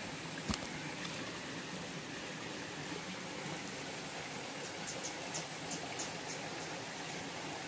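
Small stream running steadily, with one sharp knock about half a second in and a run of faint quick clicks a little past the middle.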